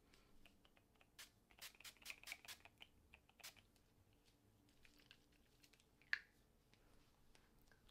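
Pump-mist bottle of Urban Decay setting spray being sprayed: a quick series of faint spritzes over the first few seconds. A single short, slightly louder click comes about six seconds in.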